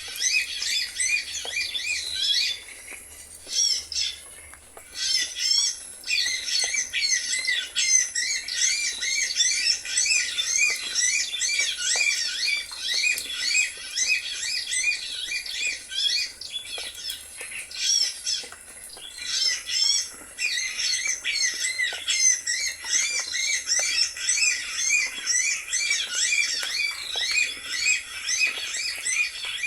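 Bird calling: rapid, unbroken runs of high, repeated chirping notes, with brief pauses about three, five and eighteen seconds in.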